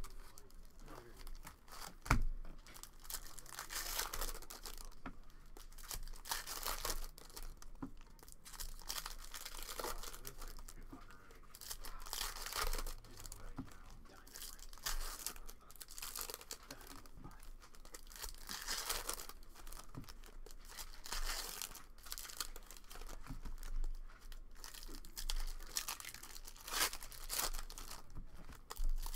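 Foil wrappers of 2015 Bowman Draft baseball card packs being torn open and crinkled, with cards being handled and shuffled, in irregular bursts. A sharp knock about two seconds in.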